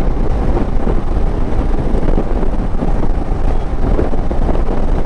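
Wind buffeting the rider's microphone while riding a Royal Enfield Himalayan, the motorcycle's 411 cc single-cylinder engine running underneath.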